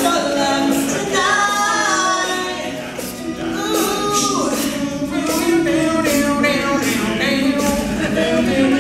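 All-male a cappella group singing in close harmony, a lead voice over sustained backing vocals, with a regular beat of short, sharp percussive sounds.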